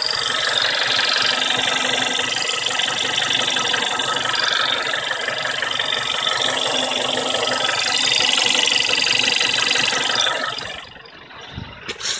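VW Golf 6 engine idling with a fast, steady ticking knock, which the owner puts down to the fuel lines. The sound drops away sharply near the end, and a couple of short knocks follow.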